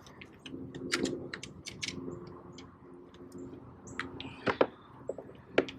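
Irregular sharp clicks and taps of fishing tackle and kayak as a small puppy drum is brought in, with a faint low hum under the first few seconds.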